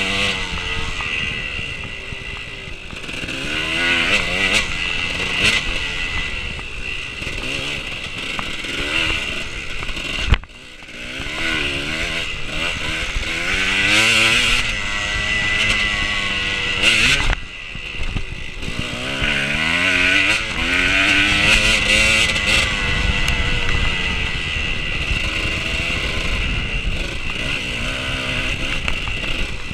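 Dirt bike engine running hard through a race, its note repeatedly rising and falling as the throttle is worked. About ten seconds in there is a sharp knock and the engine sound drops off suddenly for a moment, then builds again.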